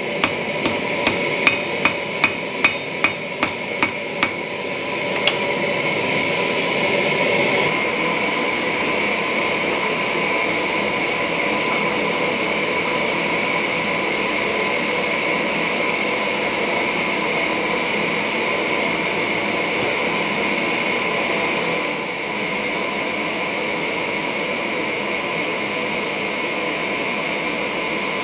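Hand hammer lightly tapping a red-hot Cu Mai billet (steel layers with copper between) on an anvil, about two blows a second for the first four seconds and one more strike shortly after. The light taps consolidate the stack while the copper is melted. After the strikes a steady, loud whooshing drone carries on alone.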